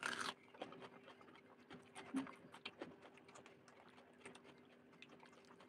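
Close-up eating sounds: a crunchy bite into a raw red onion at the very start, then soft wet chewing and mouth clicks.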